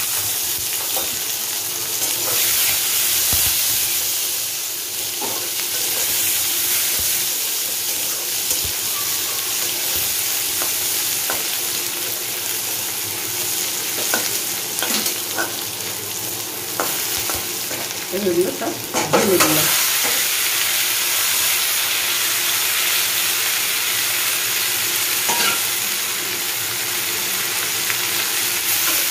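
Sliced onions sizzling in hot oil in a metal kadai, stirred with a metal spatula that scrapes and taps against the pan. There is a steady frying hiss, and about two-thirds of the way through comes a short, louder patch of clatter and scraping.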